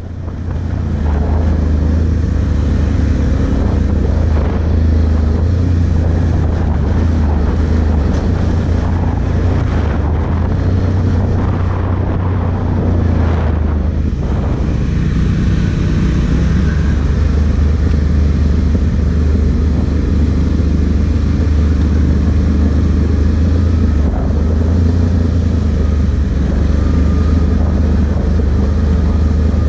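Can-Am Outlander 1000 ATV's V-twin engine running steadily under way on a dirt trail, with a deep, constant low hum.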